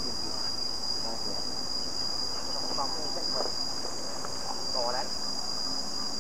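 A steady, high-pitched insect drone, with faint voices now and then.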